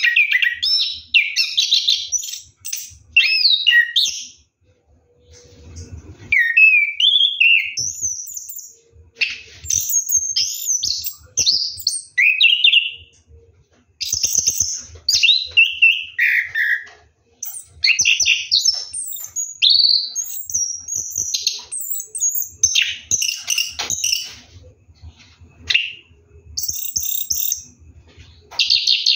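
Orange-headed thrush (anis kembang) singing: loud, fast, varied whistled and warbling phrases with quick rising and falling notes, in runs of one to three seconds broken by short pauses.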